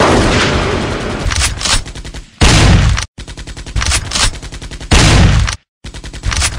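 Gunfire: a loud opening blast, then rapid strings of shots and heavier booms that break off abruptly about three seconds in and again after five and a half seconds, the sequence repeating.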